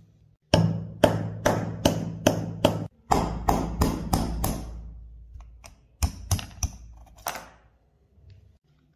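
A hammer striking a steel pin punch again and again, driving a small cross pin out of the rear of a Tokarev TT-33 pistol slide. The sharp metal taps come in three quick runs, about two to three a second, and the last run is lighter.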